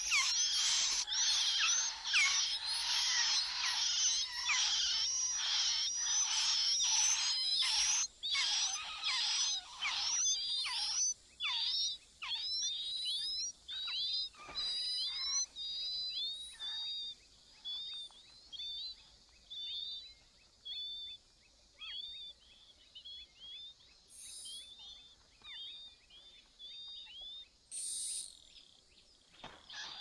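Hwamei nestlings begging: a dense, loud chorus of high chirps while the adult feeds them, thinning over the middle to fainter, spaced-out single calls once the parent has left. Near the end the chorus breaks out loud again as the adult returns with food.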